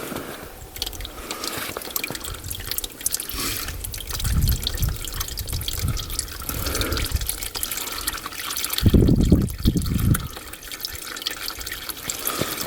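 Fluid draining from a UTV engine and trickling into a catch pan, with dripping and a couple of dull low knocks about four and nine seconds in.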